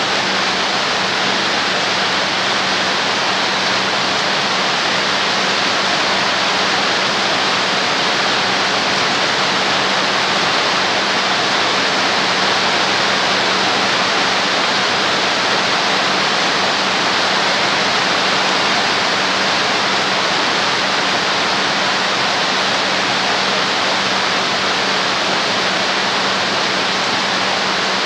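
Heavy rain falling on a corrugated metal roof, a loud, steady, dense hiss that does not let up.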